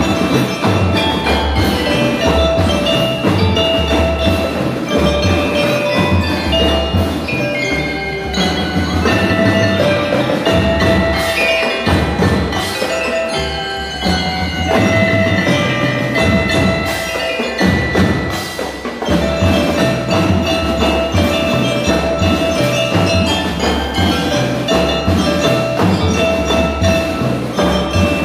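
Live marching percussion ensemble playing: mallet keyboards ring out a melody over snare and bass drums.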